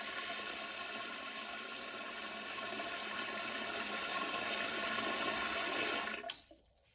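Brondell Simple Spa bidet nozzle spraying water after its valve is turned on: a steady hiss that stops abruptly about six seconds in.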